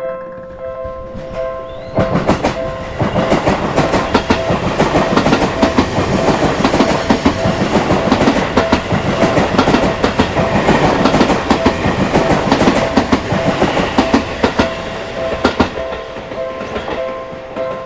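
Japanese level-crossing warning bell ringing in a steady repeating pattern. About two seconds in, an electric Seibu Ikebukuro Line train passes over the crossing for about fourteen seconds, its wheels clacking over the rail joints and drowning out the bell. The bell is heard clearly again near the end.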